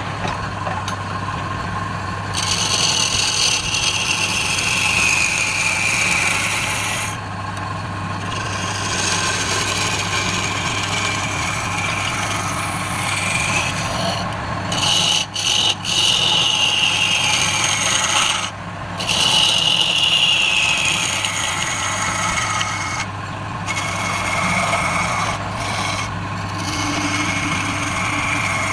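Wood lathe running with a steady hum while a turning tool cuts into the spinning workpiece, a continuous scraping hiss that stops briefly several times as the tool is lifted off the wood.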